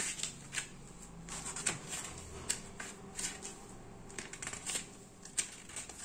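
Pages of a paper instruction booklet being leafed through by hand: a run of irregular short rustles and flicks.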